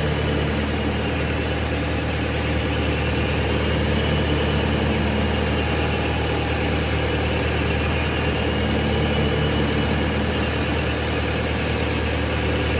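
Doosan D24 diesel engine of a Bobcat T595 skid steer idling steadily, running on a newly fitted and coded fuel injector with its injection balance reading within spec.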